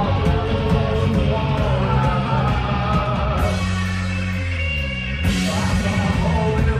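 Live rock band playing loud: electric guitar, bass and drums with singing. About three and a half seconds in the drums drop out and a low note slides down, then the full band crashes back in about five seconds in.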